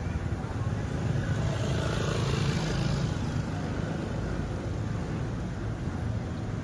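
Steady low rumble of street traffic and road noise, recorded from a moving bicycle, with a hiss that swells briefly about two to three seconds in.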